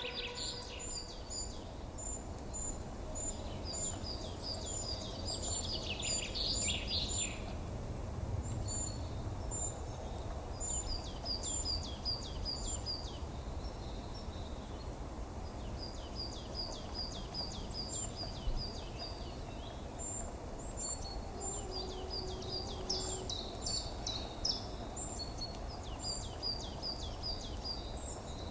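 Outdoor ambience of small birds chirping in quick runs of short, high notes, repeating throughout over a steady low rumble.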